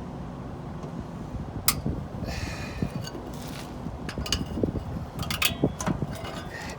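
Scattered metallic clicks, knocks and a short scrape as truck brake shoes and their return springs are handled and fitted onto the brake assembly, over a steady low hum.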